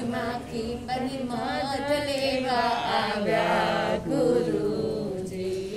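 Gujarati devotional song (bhajan) in praise of a Jain guru, sung in long, sliding melodic notes with no clear words.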